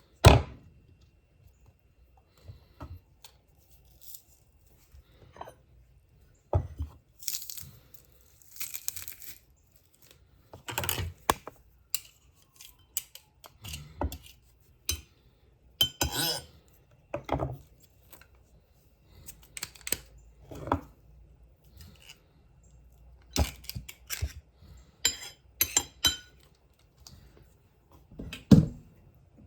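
Intermittent kitchen handling sounds: separate knocks, clinks and short scrapes of utensils and dishes, some a few seconds apart, some in quick clusters.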